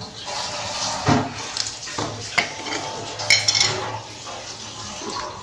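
Kitchen handling noises: a spoon scooping salt from a plastic tub and spice jars being picked up, with scattered light clicks and clinks and a quick cluster of clinks about three and a half seconds in.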